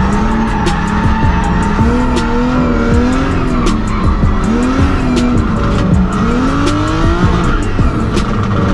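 Engine-swapped Mazda MX-5 drifting: the engine revs rise and fall again and again, with tyre squeal, over background music.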